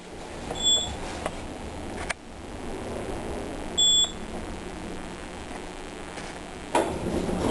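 Otis elevator car's electronic signal giving two short, high beeps about three seconds apart, over the steady hum of the moving car. Near the end the background noise rises sharply as the car's doors open.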